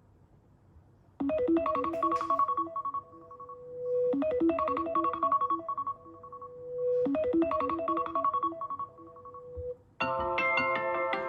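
iPhone ringtone: after about a second of quiet, a short bright keyboard-like melody plays three times, about three seconds apart, each ending on a held note. About ten seconds in, a different, fuller ringtone with many notes sounding together begins.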